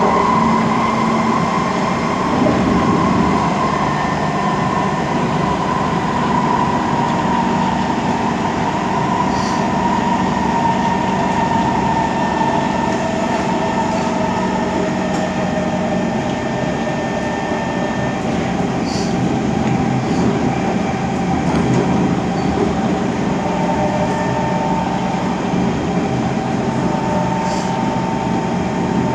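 Kawasaki C151 metro train running, heard on board: a steady rumble of wheels on track under the traction motors' held whining tones, which sag slightly in pitch over the first several seconds and then stay level.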